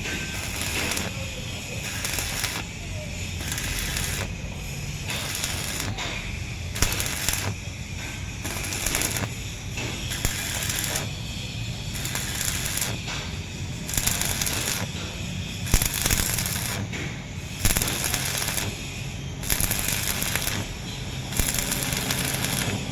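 Electric arc welding on a truck chassis: the arc crackles and spits in short runs of about half a second to a second, stopping and restarting roughly once a second, over a steady low hum.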